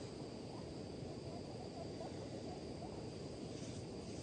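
Insects trilling in a steady high tone over a low, even rushing background.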